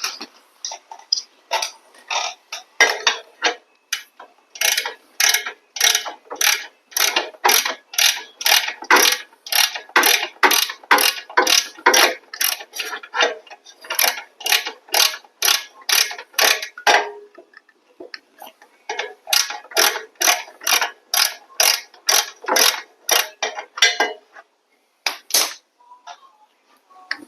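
Hand ratchet wrench worked back and forth to back out a bolt, its pawl clicking on each stroke at about two strokes a second. It pauses for a couple of seconds past the middle, then resumes and stops shortly before the end.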